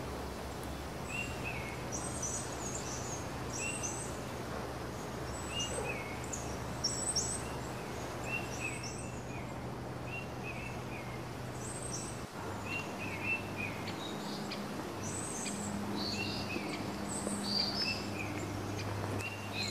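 Small songbirds chirping in woodland: short high chirps come again and again, several a second at times, over a faint steady low hum.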